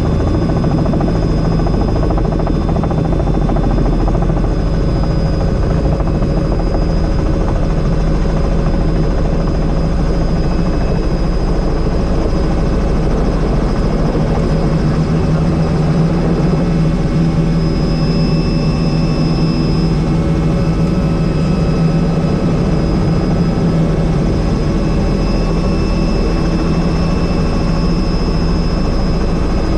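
Helicopter in flight, its engine and rotor running steadily, with a thin high whine over the drone that grows stronger about two-thirds of the way through.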